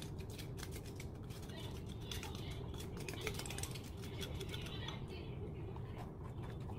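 Quick, light ticking and crackling from a pot of vegetable broth heating on an electric hot plate, over a steady low hum; the ticking thins out about five seconds in.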